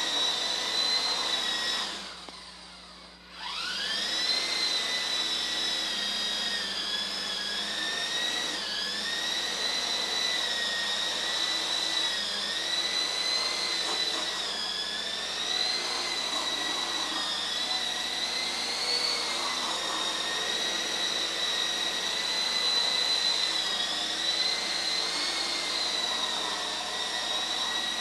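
Small coaxial RC helicopter's electric motors and rotors whining steadily in flight, the pitch wavering up and down as the throttle and sticks are worked. About two seconds in the whine fades away for about a second, then rises quickly back up as the rotors spin up again.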